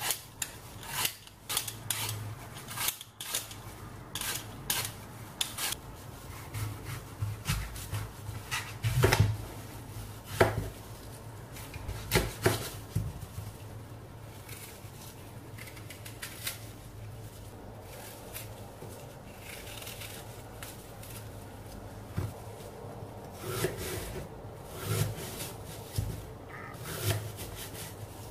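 A green apple being peeled with a Y-shaped peeler in quick, repeated scraping strokes, then cut with a kitchen knife: the blade scraping through the apple flesh, with several knocks of the knife on a wooden cutting board.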